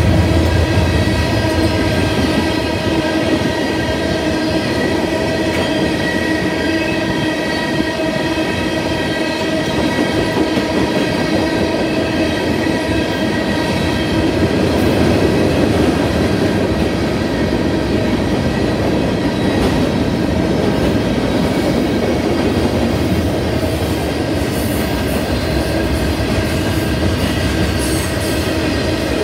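Freight cars of a manifest train, tank cars and then boxcars, rolling steadily past on the rails. A steady, high-pitched wheel squeal runs over the rolling rumble.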